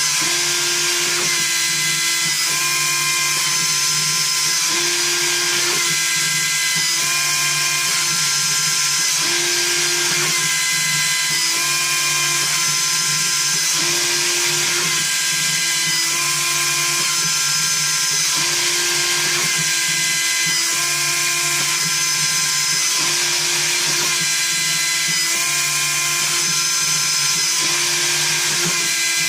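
CNC milling machine cutting a wooden keycap: the spindle runs steadily while the motor tones jump to new pitches every second or two as the tool follows its toolpath.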